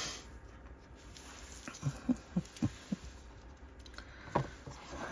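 Gloved hands handling a silicone resin mould on a work mat: a quick run of about five soft, dull knocks a little under two seconds in, then a single sharper tap later on.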